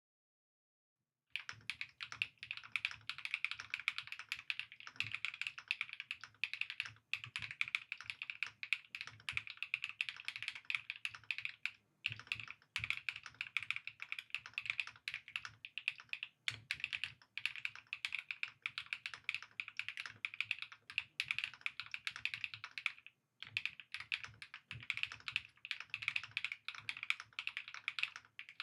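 Fast, continuous typing on an Epomaker Split 70 split mechanical keyboard, a dense run of key clacks that starts about a second and a half in and breaks off briefly a few times.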